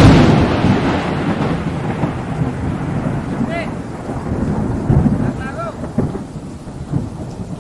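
A thunderclap breaks suddenly and loudly, then rolls on as a rumble that slowly dies away over several seconds, with a few swells along the way.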